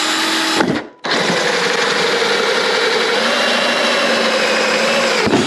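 Power drill running a 1 3/4-inch hole saw through thick black plastic, a steady whine with plastic shavings cutting. It stops for a moment about a second in, then cuts again steadily, its pitch sagging and picking back up midway.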